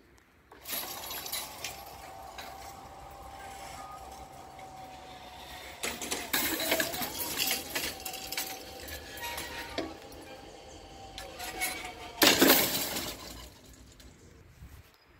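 Level crossing warning bell ringing with a steady metallic tone while the half-barriers lower, stopping once they are down. There is a short loud rush near the end.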